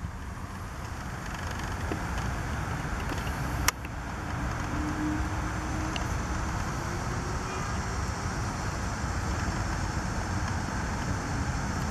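Steady outdoor background rumble and hiss, with one sharp click a little under four seconds in.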